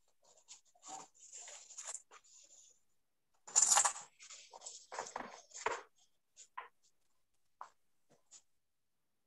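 Scattered short rustles and clicks of handling noise picked up by a video-call microphone, the loudest just under four seconds in, with the sound cut to dead silence between them.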